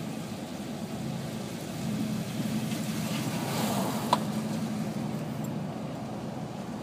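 Steady engine and road noise from inside a car driving along, with one sharp click about four seconds in.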